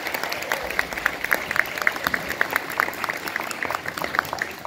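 Audience clapping, the claps thinning out near the end.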